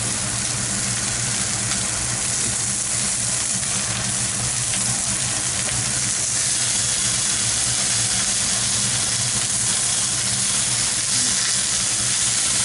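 Raw hamburger patties sizzling steadily in a frying pan over high heat, which the cook says was too strong. The sizzle grows a little louder about halfway through.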